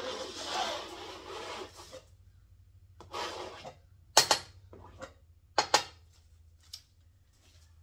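A hand scraper dragged through wet acrylic pour paint on a canvas, scraping the paint off: one long rasping stroke of about two seconds, then a shorter one about three seconds in. Three sharp knocks follow between about four and six seconds in.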